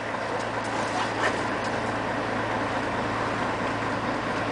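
Scania CN113CLL city bus heard from inside the cabin while driving at steady speed: the engine and drivetrain hum evenly under steady road noise, with a few faint rattles about a second in.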